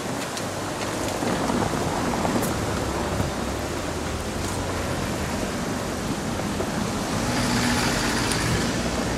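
Diesel-electric KiYa E195 rail transport train running slowly away, its engine a steady low drone under a wash of traffic noise; the drone becomes more distinct near the end.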